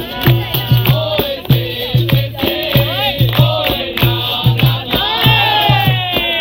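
Capoeira roda music: voices singing over a steady rhythm of low drum strokes and shaken-rattle clicks, the drum typical of the atabaque and the rattle of the berimbau's caxixi.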